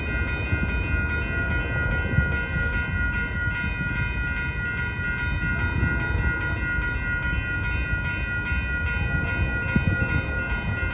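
Railroad grade-crossing warning bells ringing steadily as a train approaches, heard over a low rumble.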